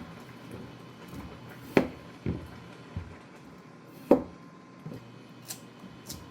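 Kitchen handling sounds: two loud, sharp knocks about two seconds apart, with a few lighter taps and clicks between and after them.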